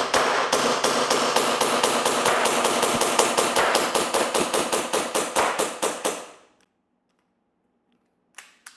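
Tokyo Marui Hi-Capa gas blowback airsoft pistol on green gas fired in a fast, even string of about five shots a second, the slide cycling on each. The shots stay consistent, with no drop-off, until the magazine runs empty a little after six seconds in and the slide locks back. One short click near the end.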